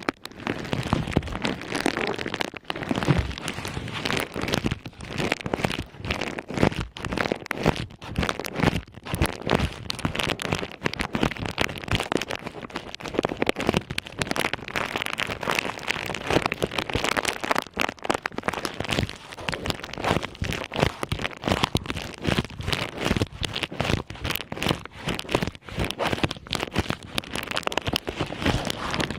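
Ear covers on an ASMR microphone's ears being handled against the mic, a loud, dense crackling rustle.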